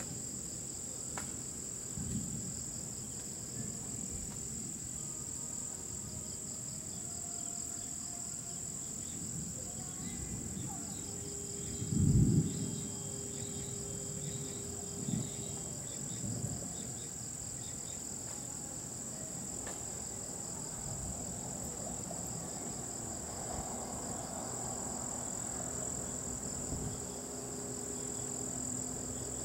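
Night insects, crickets among them, chirring in a steady high-pitched chorus with a fast pulsing layer beneath. About twelve seconds in, a brief low thump stands out as the loudest sound.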